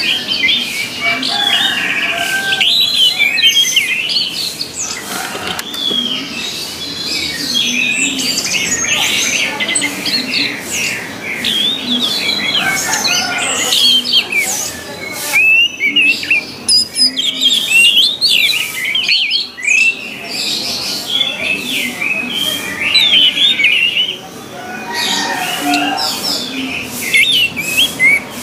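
Orange-headed thrush song: a fast, dense stream of varied whistled and chattering phrases, broken by a few short pauses.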